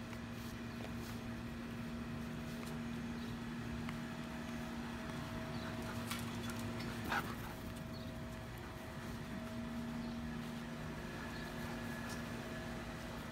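A steady machine hum with two fixed tones throughout. Around the middle come a few sharp clicks and taps, the loudest a little past halfway, as a husky runs across the tiled patio.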